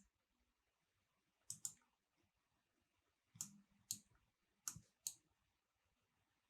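Computer mouse buttons clicking: about six faint, sharp clicks, mostly in pairs, with near silence between them.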